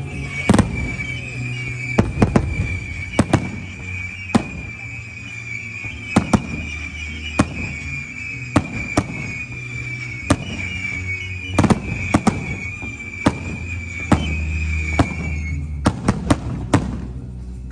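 Aerial firework shells bursting overhead: dozens of sharp bangs at irregular intervals, some in quick clusters, over background music with a steady bass.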